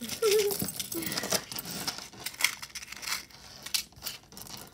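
Metal jewelry chain and links clinking and jangling as a necklace is handled and freed, a scatter of small irregular metallic clicks.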